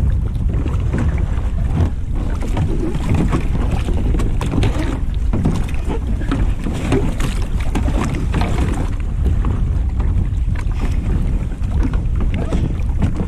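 Wind buffeting the microphone with a steady low rumble, over water slapping against the hulls of two kayaks lying side by side on choppy sea, with scattered small knocks and splashes.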